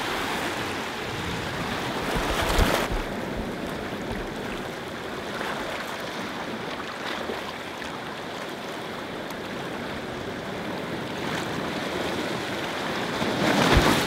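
Sea surf washing over rocky shore: a steady rush of breaking water, with a louder surge about two and a half seconds in and an incoming wave swelling up near the end.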